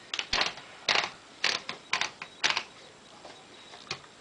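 1941 Royal Arrow portable typewriter being handled while a sheet of paper is loaded into it: a string of short mechanical clatters and rattles, about five roughly every half second, then one more near the end.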